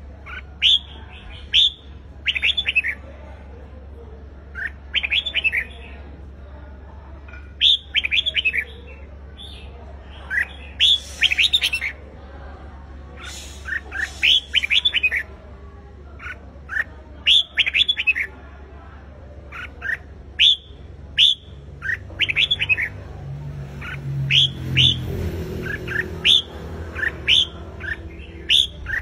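Red-whiskered bulbul singing: short phrases of quick, bright whistled notes repeated every two to three seconds, over a steady low hum. A low rumble joins in near the end.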